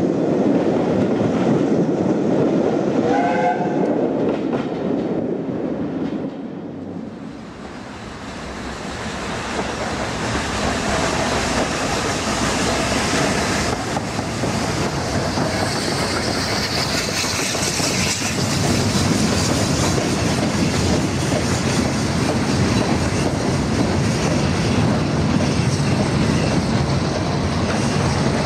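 A steam train passes close beneath, rumbling, with a brief whistle about three seconds in. The sound then fades, and a steam locomotive hauling a train of empty mineral wagons approaches, its running growing steadily louder.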